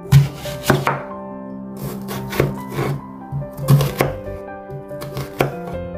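Chef's knife cutting through a white onion and knocking down onto a bamboo cutting board, about eight irregularly spaced cuts, over steady background music.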